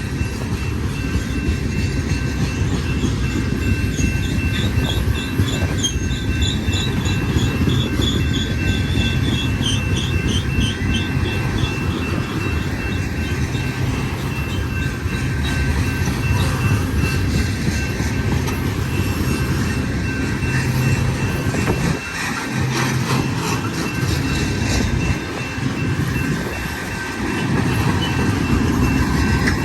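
Freight train cars rolling past: a steady rumble of steel wheels on rail with a high wheel squeal held throughout. A run of short repeated squeaks comes in the first third, and scattered clicks of wheels over rail joints come in the second half.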